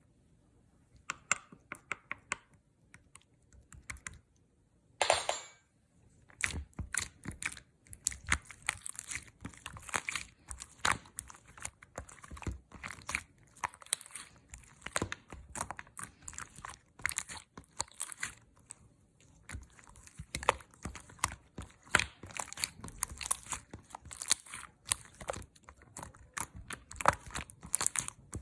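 Orange slime being squeezed and worked by hand, giving a steady run of small popping and crackling clicks from trapped air. A louder short rasp comes about five seconds in.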